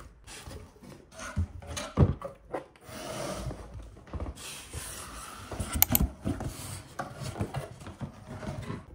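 Cardboard shipping box being opened by hand: packing tape pulled and torn off, cardboard flaps scraping and rubbing, with a couple of sharp knocks against the box.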